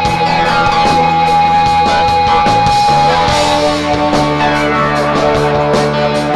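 Live rock band playing an instrumental passage: a long sustained electric guitar note rings over drums and bass for about the first three seconds, then the notes change.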